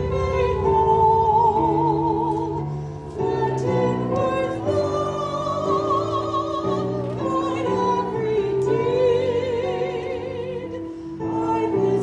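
A woman singing a slow hymn with wide vibrato into a microphone, accompanied by chords on a Roland Fantom G6 keyboard, both amplified through PA speakers.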